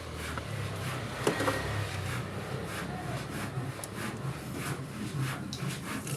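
Irregular scraping strokes, with a sharp knock about a second in, over a low hum.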